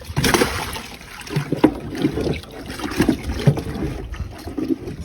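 Water splashing and sloshing, with irregular short knocks through it.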